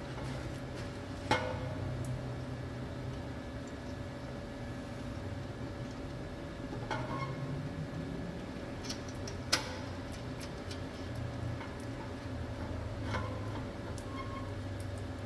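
A few scattered, sharp metallic clicks and clinks as a section of exhaust pipe is worked up into place against its flange by hand, the sharpest about nine and a half seconds in, over a steady low hum.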